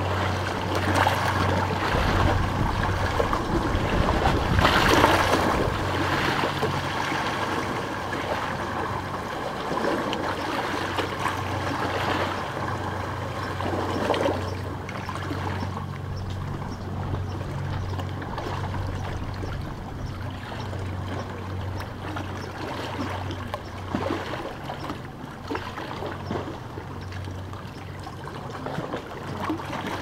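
Small sea waves lapping and trickling over a stone beach, louder for the first several seconds and then easing off. A steady low hum runs underneath.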